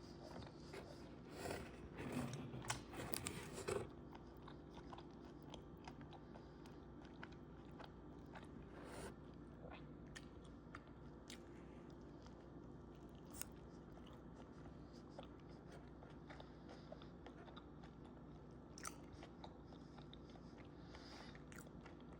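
A person biting into and chewing a lobster antojito, with crunching bites in the first few seconds, then quieter chewing with a few small clicks over a faint steady hum.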